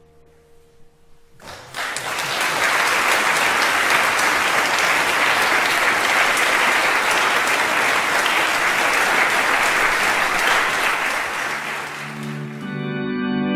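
Audience applauding, beginning about a second and a half in as the song's last held chord fades out. Near the end the applause dies away and music with long held chords comes in.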